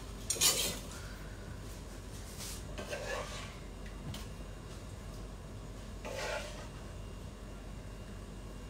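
Metal spoon clinking and scraping against steel pans as malai paneer is spooned out of the cooking pan into a serving dish: a sharp clatter about half a second in, then softer scrapes about three and six seconds in.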